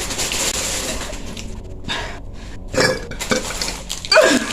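Ice clinking in a cup of soda, with a fizzing hiss over the first second or so. A short vocal sound follows near the end.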